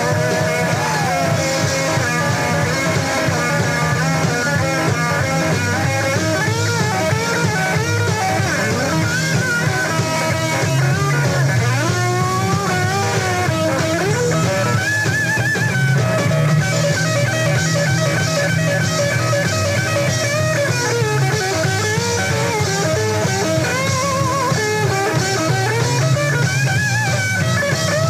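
Rock and roll band playing live, heard on a soundboard recording: an electric lead guitar solo with bending, sliding notes over bass and drums.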